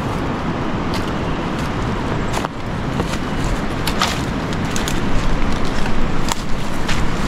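Dry branches crackling and knocking as they are carried and laid onto a pile of firewood. Scattered sharp snaps and clicks come more often in the second half, over a steady rushing background noise.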